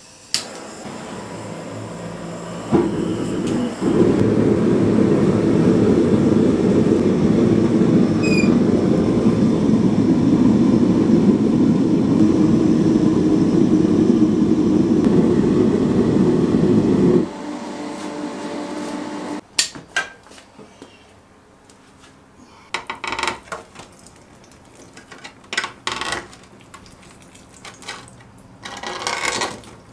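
Gas forge burner lit with a click, hissing and then running loudly and steadily for about thirteen seconds before it is turned down and shut off. After that come clanks and bursts of sizzling and crackling as the hot cleaver blade is quenched in burning oil.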